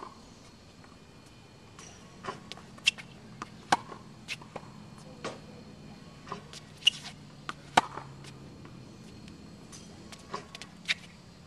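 Tennis balls being struck by racquets and bouncing on a hard court: a dozen or so sharp pops at irregular intervals, some loud and some faint, over a faint steady low hum.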